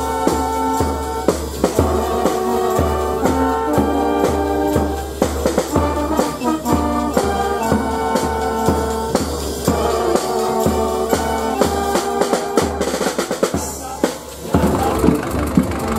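Marching carnival brass band playing a tune: trombones, saxophones, clarinets and sousaphone over a steady bass drum and snare beat. The music drops away briefly near the end.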